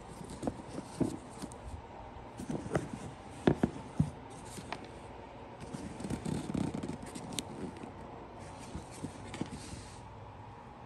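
Handling noise from a hand turning and feeling a pair of Air Jordan 4 sneakers: irregular light knocks and clicks with rustling of the shoe material. The sharpest knocks come about three and a half seconds in.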